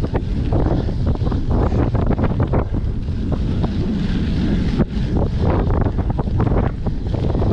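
Wind buffeting the microphone of a cyclocross bike being ridden, with frequent knocks and rattles as the bike jolts over rough ground; one sharper knock comes a little past the middle.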